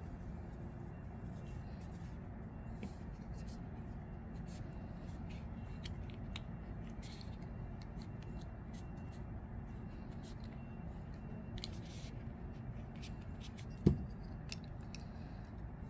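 Microfiber cloth rubbing over a Vosteed Morel folding knife's blade and handle, a string of soft brushing swishes over a steady low hum. A single sharp knock near the end.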